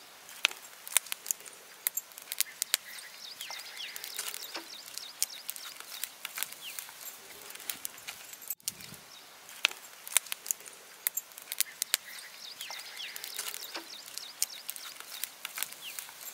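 Wood fire crackling with sharp, irregular pops as green coconuts roast over it. Birds chirp faintly in the background, and the sound cuts out for an instant about halfway through.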